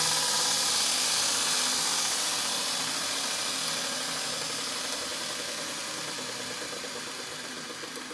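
Steady power-tool hiss from knife-making work, fading away smoothly over several seconds once the tool's low motor hum has stopped.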